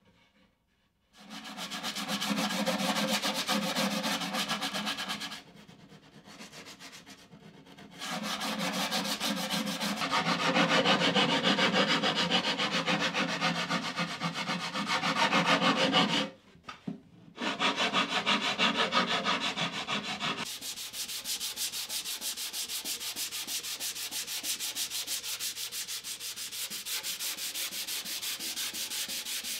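Hand sanding plywood edges: sandpaper on a sanding stick scraped back and forth along a corner of a plywood box, starting about a second in, with a couple of short pauses. After about two thirds of the way through it turns quieter and steadier as a folded sheet of sandpaper is rubbed by hand over the plywood edge.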